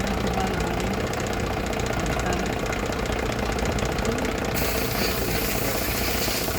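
Car engine idling with a fast, even knocking tick: the engine noise fault under investigation. About four and a half seconds in, a hiss joins the sound.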